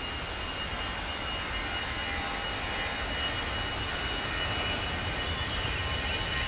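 Airbus A320 jet engines on takeoff, a steady rush with a thin high whine, slowly growing louder.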